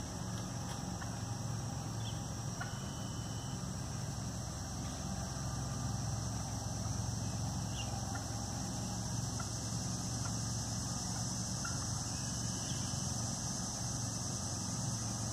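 Steady high-pitched insect chorus over a low steady hum, with a few faint short clucks from wild turkeys roosting in the trees.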